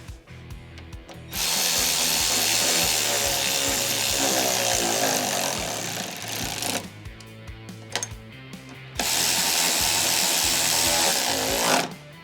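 Cordless drill driving bolts with an Allen bit, run twice: for about five seconds, then for about three seconds. The bolts are being snugged down gently rather than tightened hard.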